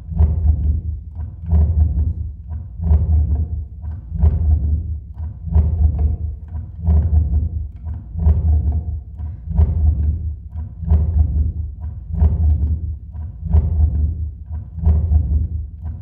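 Live-processed guitar music: a steady, repeating low thudding pulse, about three every two seconds, each with a short ringing decay above it.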